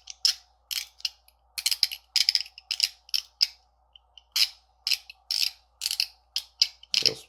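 Zirconium UFO haptic coin being worked by hand: its top part rides its ring of beads over the track of divots, giving quick runs of sharp detent clicks, several a second, with short pauses between runs.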